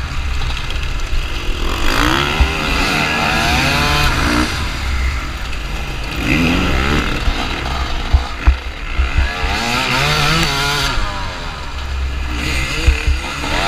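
TM 250 EN two-stroke enduro motorcycle engine, heard from the bike itself, revving hard through the gears. The pitch climbs, drops back and climbs again about four times, with other dirt bikes running close by.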